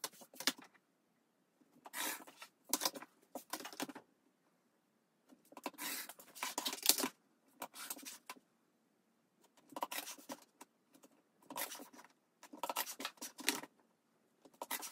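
Rotary cutter running through fabric against a quilting ruler on a cutting mat, in a series of short cuts with pauses between them as the ruler is repositioned for each square.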